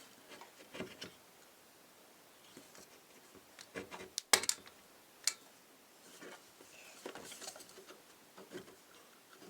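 Scattered short clicks and light knocks from working a caulking gun loaded with construction silicone sealant, with the sharpest clicks a little after four seconds and around five seconds in.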